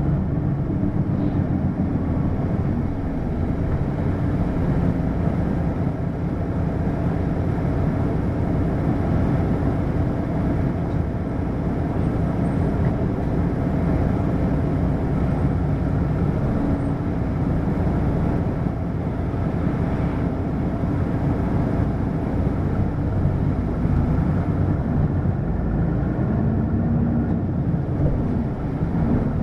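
Hino LKG-KV234N3 diesel city bus running: a steady engine drone with road noise.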